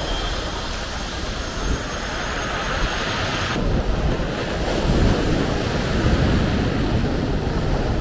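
Mediterranean surf breaking and washing over a pebble beach, with wind buffeting the microphone. The high hiss drops away suddenly about three and a half seconds in.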